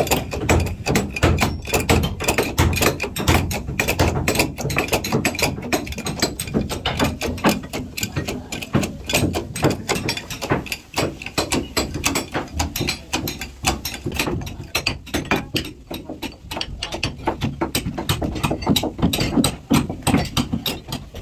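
Dense, irregular clicking and knocking of hand tools working on a wooden boat's timbers, many strikes a second, as the cabin and hold fittings are being taken apart.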